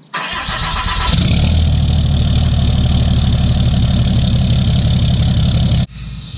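Pickup truck engine cold-starting through its exhaust: a second of cranking, then it catches and runs steadily. Near the end the sound drops sharply and then builds again.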